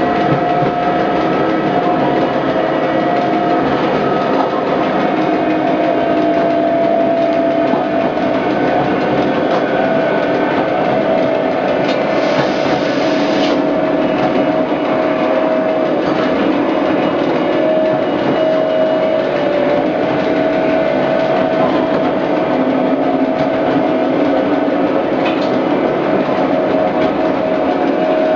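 Electric railcar of the metre-gauge Lauterbrunnen–Mürren mountain railway running along the track: a steady rumble of wheels and running gear with a steady tone through it, and a brief hiss about twelve seconds in.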